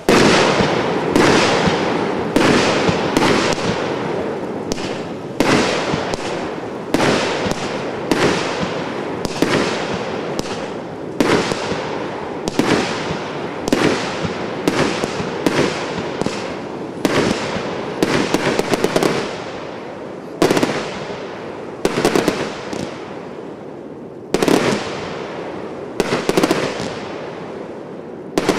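A 'Golf Club' consumer fireworks cake firing shot after shot, a little more than one a second, each sharp bang trailing off before the next.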